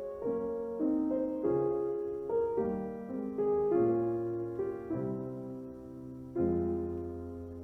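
Slow piano music: chords struck one after another, each left to ring and fade, with a longer held chord near the end.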